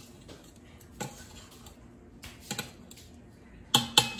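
A metal utensil clinking against a metal cooking pot: a few light scattered clicks, then a quick run of sharp, ringing taps near the end.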